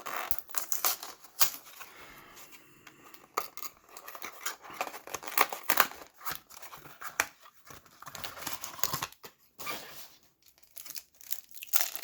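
A cardboard hanger box of trading cards and its plastic wrap being torn open and crinkled by hand: a run of irregular sharp rips and crackles with short pauses.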